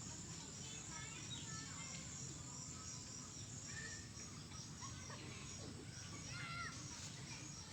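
Faint ambience: a few short bird chirps and a steady insect trill over a low hum.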